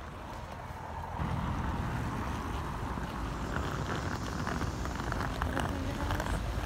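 Wind rumbling on a phone's microphone, louder from about a second in, with scratchy rustling and light crackles as the phone rubs against a snow-covered wool scarf.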